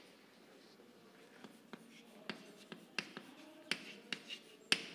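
Chalk writing on a chalkboard: a string of sharp little taps and clicks as the chalk strikes and scrapes the board, a few a second, the loudest near the end.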